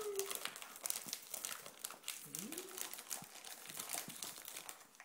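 Crinkling and rustling of a Christmas present's wrapping being handled and pulled at, with a short rising whine about two and a half seconds in. The crinkling stops abruptly at the end.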